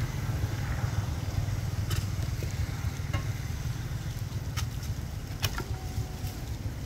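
Steady low rumble and hiss of outdoor background noise, with a handful of sharp clicks spread through it.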